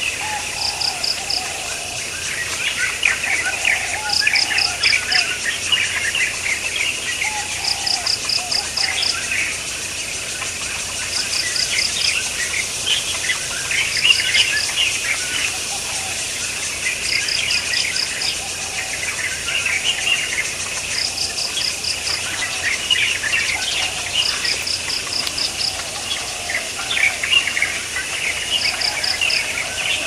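Outdoor ambience of birds chirping busily and insects calling. A short, high trill of four to six rapid pulses repeats about every three to four seconds.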